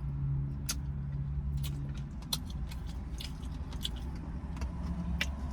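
Close-up chewing and biting on fried pork chop, with scattered wet mouth clicks, over a steady low hum.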